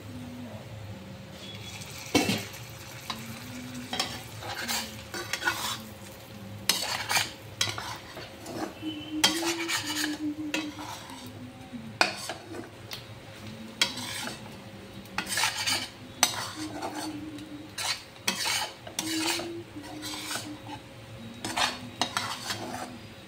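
Chopped chicken intestines sizzling in a nonstick frying pan while a spatula stirs and scrapes them in repeated irregular strokes. There is a single clank about two seconds in as the stainless steel lid comes off.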